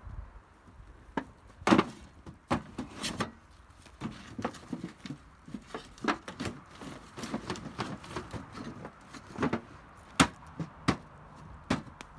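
Irregular sharp knocks and cracks of bamboo being handled, more than a dozen strikes at uneven spacing, a few much louder than the rest.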